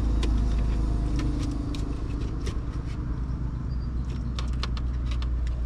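A steady low hum with scattered short crackles and pops, the crackling of crayfish tails sizzling in butter in a pan.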